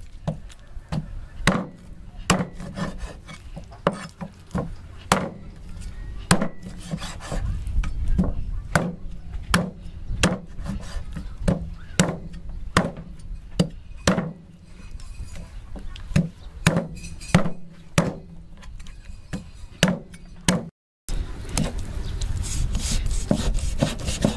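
Cleaver chopping through a raw pig's leg on a wooden chopping block, with sharp knocks coming about one to two times a second. There is a brief silence near the end, then the chopping resumes with more scraping.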